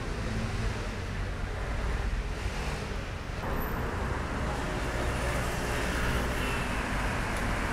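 Steady city street traffic noise, with cars and a motor scooter going by.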